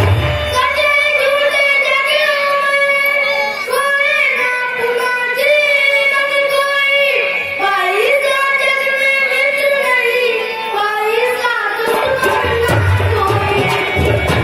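A high voice singing a slow devotional melody in long held notes, with no drum behind it; a hand drum comes back in near the end.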